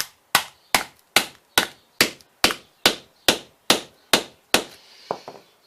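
A hammer striking a screwdriver to drive it through a smartphone, about a dozen sharp blows in a steady rhythm of roughly two and a half a second, stopping near the end with a couple of lighter taps.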